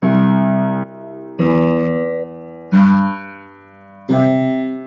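Upright piano playing a slow arpeggio from low C, hands crossing over: four separate notes about a second and a third apart, each struck and left ringing.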